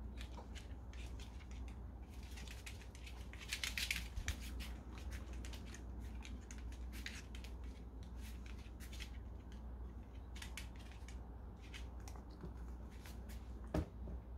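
Chihuahua's claws clicking and tapping on a laminate floor as it shifts its feet while begging, a scatter of sharp little clicks with a denser flurry about four seconds in and a firmer knock near the end.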